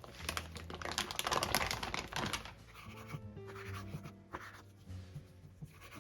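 Rapid small clicks and rustles of kitchen prep work, densest in the first couple of seconds and then sparser, over soft background music.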